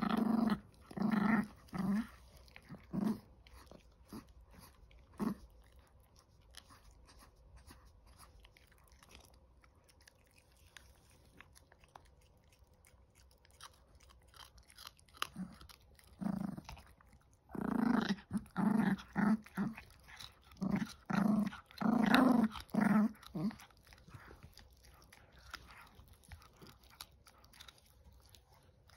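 Chihuahua puppy gnawing and crunching on a hand-held chew stick, with short bursts of growling near the start and a run of growls in the second half.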